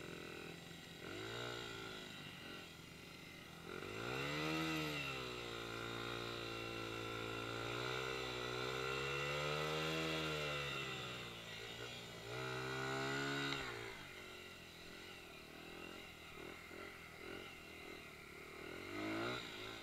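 Dirt bike engine revving. A short rev about a second in is followed by the engine held high, its pitch wavering, for about seven seconds. After one more rev it settles to a low idle, with a brief rev near the end.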